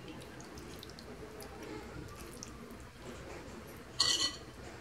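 Hands pressing wet, marinated fish pieces into place in a clay tagine: faint squishing and small clicks, with a short sharp noise about four seconds in, the loudest thing heard.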